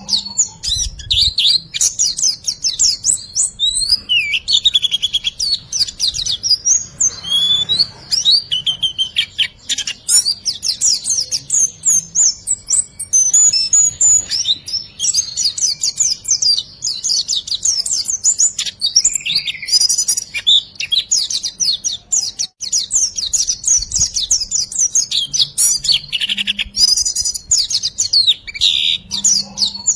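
Small songbird singing a rapid, unbroken string of high chirps and trills in the 'riwikan' style used as masteran song for tutoring caged birds.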